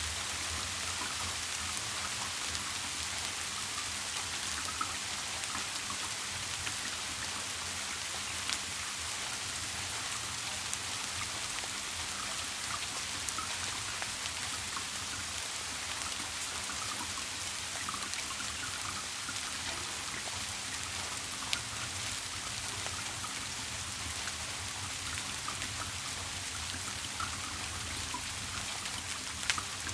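Steady rain falling, with scattered individual drops ticking through it. A low, steady hum runs underneath.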